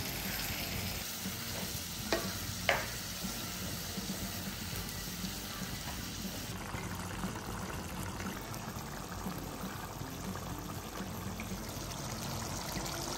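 Chicken curry sizzling in a pan with water just added, stirred with a spatula. Two sharp clinks about two seconds in.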